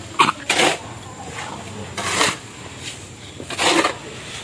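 Metal shovel scraping through a heap of wet cement mix on a concrete slab, a few separate rasping scrapes about a second apart.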